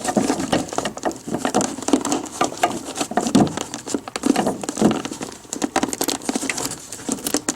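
Hands working an LED headlight bulb into the back of a headlight housing: irregular plastic clicks, rustling and a few dull knocks as the bulb is twisted in and the plug is handled.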